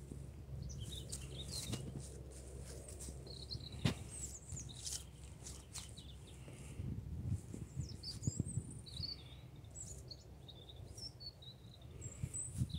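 Small birds chirping in short, high, gliding calls scattered throughout, over a steady low rumble, with a sharp click about four seconds in.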